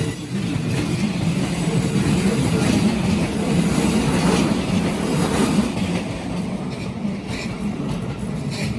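Keikyu Line electric train running over a level crossing: a steady noise of wheels on rails, easing off a little after about six seconds.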